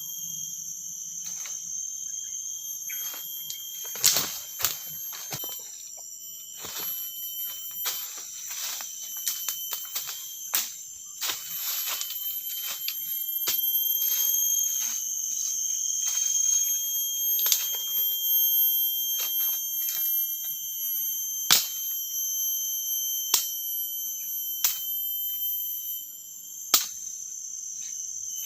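Forest insects keep up a steady, high-pitched drone. Irregular sharp knocks and cracks sound throughout, the loudest about four seconds in and again near the twenty-second mark.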